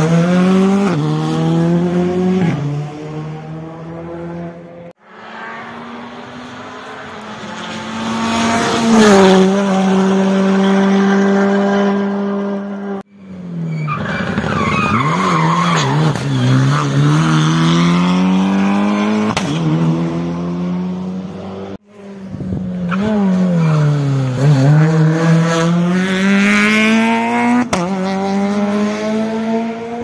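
Rally cars taking a hairpin one after another: each engine's revs fall as it brakes and shifts down, then climb again as it accelerates away through the gears, with some tyre squeal. The sound breaks off abruptly between cars.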